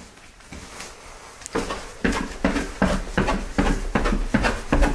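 Footsteps, starting about a second and a half in and going at a steady pace of about two and a half steps a second.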